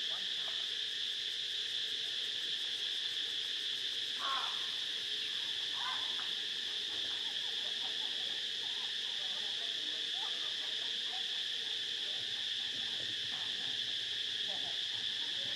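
Steady high-pitched drone of an insect chorus, with a few brief faint calls about four and six seconds in.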